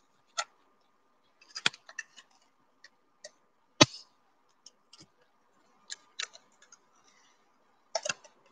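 Scattered sharp clicks and knocks from handling a sellotape dispenser and a plastic sheet on a wooden tabletop. The loudest knock comes about four seconds in, and a faint steady high hum runs underneath.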